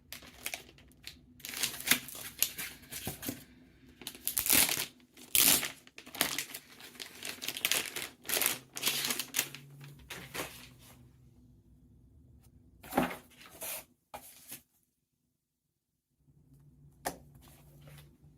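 Packaging of a mechanical keyboard being handled and pulled open: irregular crinkling and tearing of plastic and paper. The rustling thins out after about ten seconds into a few sharp handling sounds, broken by a second or so of dead silence.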